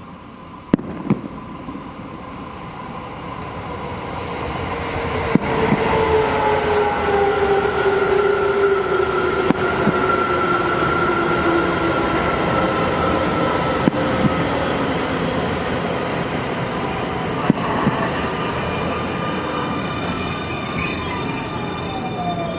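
Keio 9000-series electric train pulling into a station: its rumble grows louder over the first few seconds, and its motor whine slides slowly downward in pitch as it brakes. A few sharp bangs stand out above it.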